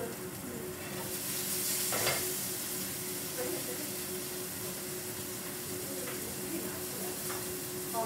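Meat frying in a pan off-camera: a steady sizzling hiss that grows brighter about a second in, over a low steady hum, with a brief click around the middle.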